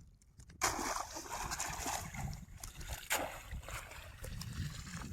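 Water splashing: a sudden splash about half a second in as a hand cast net lands, then continued uneven sloshing and splashing, with another sharp splash near the middle.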